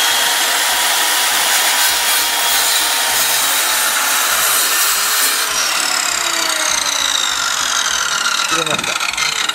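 PA SMS-190T electric slide miter saw running loud and cutting through a thick wooden deck floorboard. In the second half its whine falls steadily in pitch, as the motor winds down.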